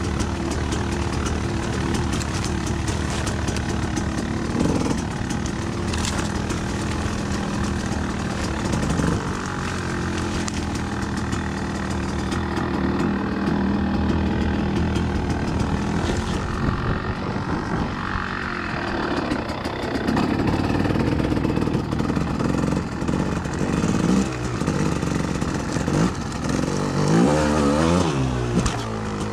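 Off-road vehicle engine running under changing throttle as it is ridden, with a few quick revs rising and falling near the end.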